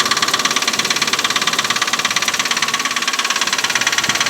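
2004 Nissan Pathfinder's 3.5-litre V6 engine idling with a rapid, even knocking from inside the engine, the sign of an internal fault whose source the owner does not yet know.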